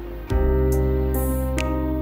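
Soft instrumental background music enters about a third of a second in, playing sustained, steady chords.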